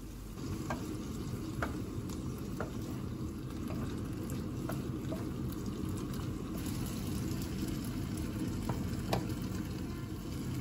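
Vegetables in gochujang sauce frying in a non-stick pan with a steady sizzle, stirred with a wooden spatula that clacks lightly against the pan now and then.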